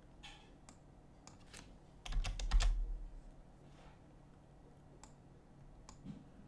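Computer keyboard typing: a quick run of keystrokes about two seconds in, with a few single clicks scattered around it.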